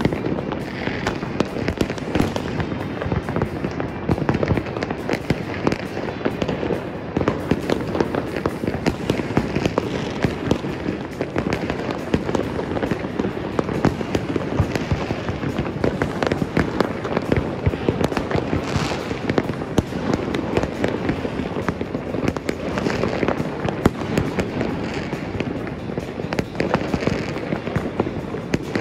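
Citywide fireworks and firecrackers going off: a dense, unbroken barrage of many overlapping bangs and crackles.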